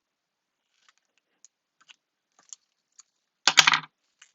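Scissors cutting through tape: a few light clicks as the tape and scissors are handled, then a short, loud crackling snip about three and a half seconds in.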